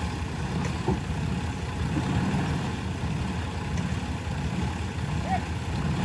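Diesel engine of an earthmoving machine running with a steady low rumble.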